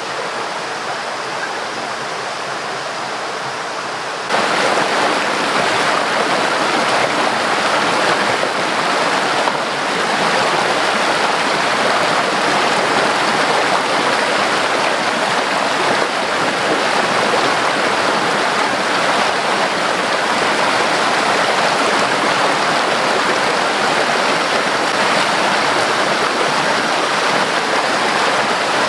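Steady rush of water, jumping clearly louder about four seconds in and then holding steady.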